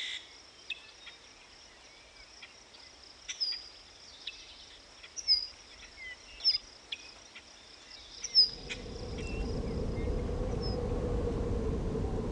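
Birds chirping in short calls that sweep downward, over a faint insect background. About eight seconds in, a low steady rushing rumble fades in and keeps on.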